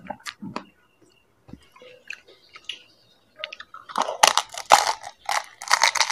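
Close-up mouth sounds of someone eating panipuri: chewing and crunching of the crisp, hollow puri shells, with scattered small crackles at first and a run of loud, sharp crunches from about four seconds in.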